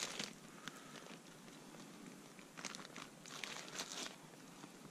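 Faint crinkling of a clear plastic bag being handled in a few short bursts as a big pike bait is taken out of it.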